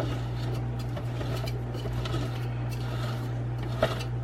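Light plastic scraping and clicking as the threaded plastic part of an Oster burr coffee grinder is twisted into place by hand, with a sharper click near the end, over a steady low electrical hum.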